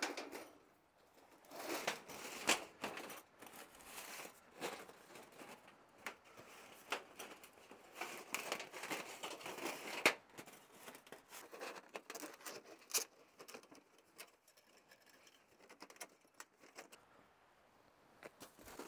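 Thin rolled titanium stovepipe handled in leather gloves while its tension rings are worked down it: irregular light metallic crinkling and scraping with scattered clicks, one sharper click about ten seconds in.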